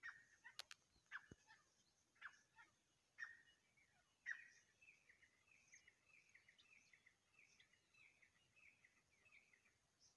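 Grey francolin pair calling: a series of falling notes about once a second, then from about four and a half seconds in a quick run of short repeated notes, about three a second. A couple of sharp clicks in the first second and a half.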